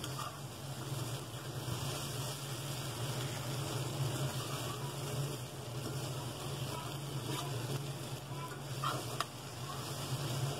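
Diced potatoes sizzling steadily in oil in a pan over a low flame while a spatula stirs them. Two short clicks about nine seconds in are the spatula against the pan.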